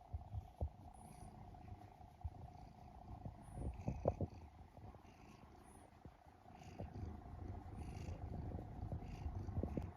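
Domestic cat purring close up, a low rumble that swells louder about four seconds in and again through the second half.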